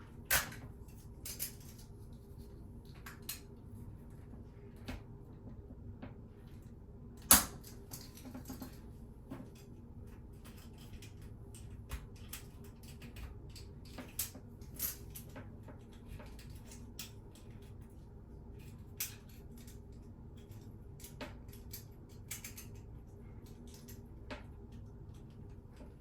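Scattered small plastic clicks and scrapes as a razor blade pries tight snap-on plastic hinge covers off a toilet seat, with one sharp click about seven seconds in standing out as the loudest.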